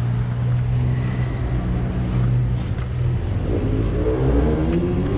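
Street traffic: a motor vehicle's engine running with a steady low hum, then an engine revving up with rising pitch over the last couple of seconds.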